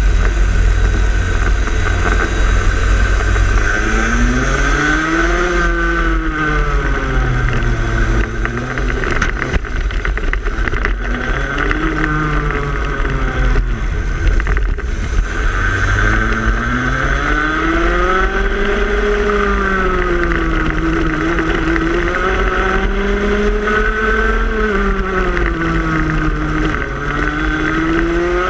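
Two-stroke racing kart engine heard onboard at race pace, its revs climbing and dropping again and again every few seconds, over a steady low rumble.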